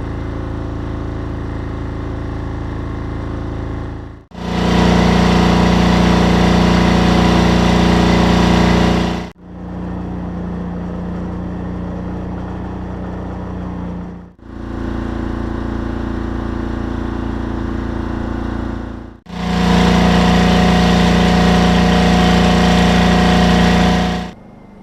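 Portable generators running steadily under load, heard in five back-to-back clips of about five seconds each that cut abruptly from one unit to the next. The clips alternate between quieter units and much louder ones, whose hum is stronger and lower.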